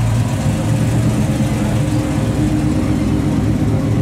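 Classic car engine running steadily at low speed as a 1957 Chevrolet cruises slowly past, a low, even rumble with no revving.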